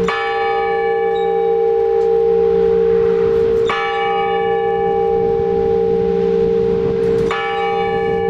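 Large Orthodox church bell rung in blagovest: single slow strokes about every three and a half seconds, three in all, each left ringing on into the next.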